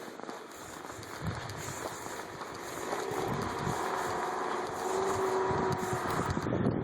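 An engine running steadily, its hum growing clearer in the second half, with irregular low rumbles underneath.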